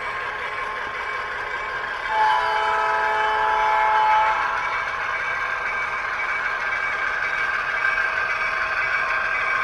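ESU LokSound decoder in an HO scale EMD MP15AC switcher playing steady diesel engine sound through its small onboard speaker. About two seconds in, a single horn blast of several notes sounds for about two seconds.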